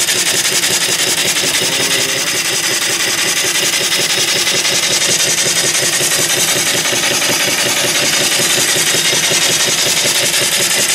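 Shop-built vertical single-cylinder steam engine, 3-inch bore by 4-inch stroke, running steadily on about 50 psi of steam: a fast, even beat of exhaust chuffs over a constant steam hiss.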